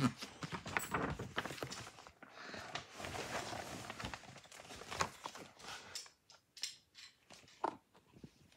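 Picture book being handled and its pages turned: paper rustling with many small knocks and taps, busiest in the first half, then a few scattered taps.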